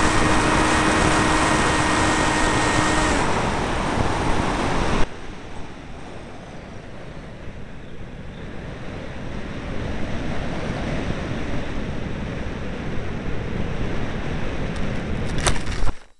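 RC FloaterJet foam plane in flight, heard from its own onboard microphone: the motor runs with a steady whine over loud air rush, and the whine stops about three seconds in. The loud rush falls away sharply about five seconds in as the plane glides. Wind noise then builds as it descends, and near the end a sharp knock comes as it lands in long grass, cutting the sound off.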